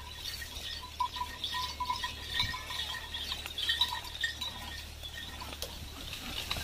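Small bells on a pair of working bullocks jingling in uneven pulses as the animals pull a loaded sugarcane cart, over a steady low rumble.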